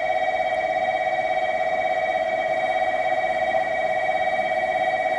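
Electric platform warning bell at a Japanese railway station ringing continuously as a fast, even trill, signalling that a train is approaching the platform.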